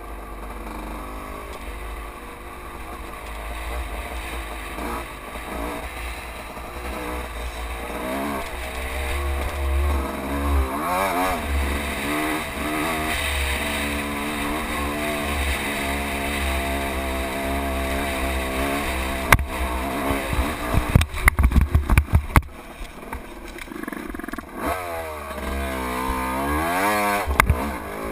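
Dirt bike engine running under load on a trail, its revs rising and falling with the throttle, over a low wind rumble on the microphone. A run of sharp clattering knocks comes around twenty seconds in, and near the end the engine revs up and back down.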